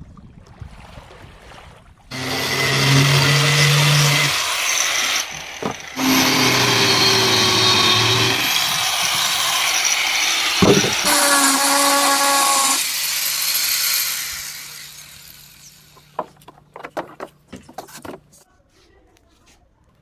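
A handheld power tool running loud with a steady motor pitch and a strong hiss. It starts about two seconds in, stops briefly a few seconds later, runs again, and winds down about fourteen seconds in. A few sharp knocks follow.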